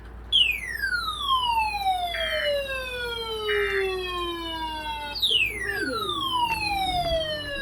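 Emergency alert siren tone on a TV broadcast: a whistle-like siren sweeping steeply down in pitch, sounded twice, each sweep about four to five seconds long. Two short beeps sound during the first sweep.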